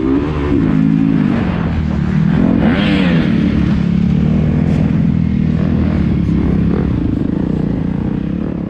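A Yamaha YZ250F motocross bike's 250 cc four-stroke single-cylinder engine, heard from on the bike, revving up and down through the first few seconds, then holding a steadier pitch under throttle for the rest.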